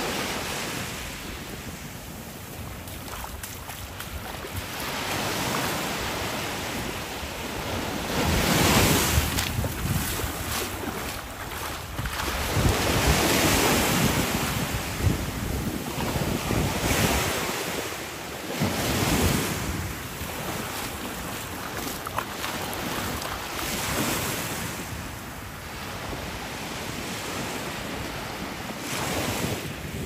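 Small waves washing up onto a sandy beach, swelling and fading every few seconds, with wind buffeting the microphone.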